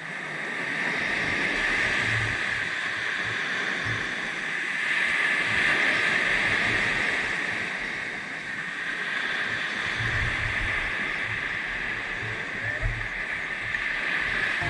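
Small waves breaking and washing up a sandy beach, the surf hiss swelling and easing every few seconds.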